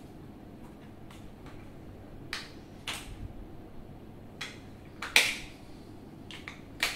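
A scatter of short sharp clicks and light knocks from small objects handled on a desk, the loudest a little after five seconds in and a quick few together near the end.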